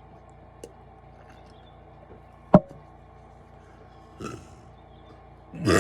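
A pause between a man's big burps: a sharp click about halfway through and a small short burp near the end, then a loud, long burp begins just as it ends.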